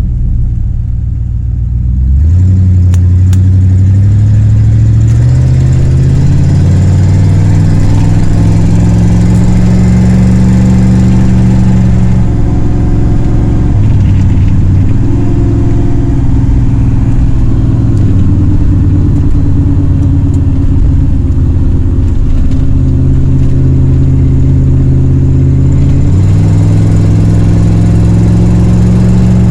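1978 Ford Mustang's engine, with a freshly repaired carburetor, pulling under load on a drive. It opens up about two seconds in, its note climbing steadily for about ten seconds before dropping back and holding, with another change in pitch near the end.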